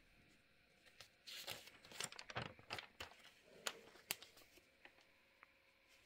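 Glossy magazine pages being turned and handled: a faint run of paper rustles and crinkles from about a second in, dying away after about four seconds.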